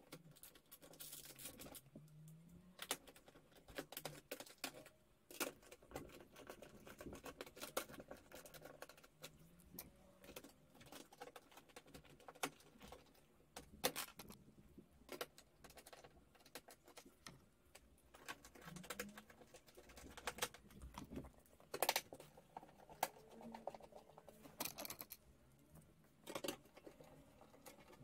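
Scattered light clicks and taps at an irregular pace, with a few sharper knocks.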